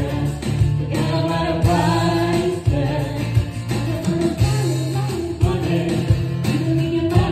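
Live acoustic duo: a woman singing a melody into a microphone over a strummed acoustic guitar.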